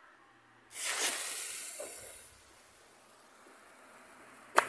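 Small youth firework fountain hissing as it sprays sparks. The hiss starts suddenly about a second in, loudest at once, then fades over a couple of seconds. A single sharp click comes near the end.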